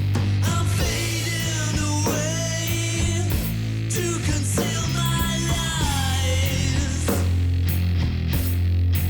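Stoner rock played by a three-piece band, with a heavy bass line and drum hits under gliding pitched lines.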